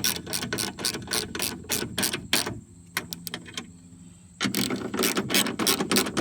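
Hand ratchet clicking as the window regulator's mounting screws are tightened, about four clicks a second, with a pause of about two seconds in the middle before the clicking resumes.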